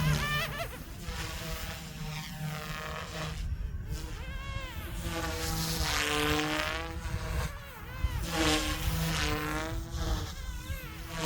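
Goosky S2 electric RC helicopter in flight: its motors and rotors give a high whine whose pitch keeps rising and falling as the throttle and manoeuvres change.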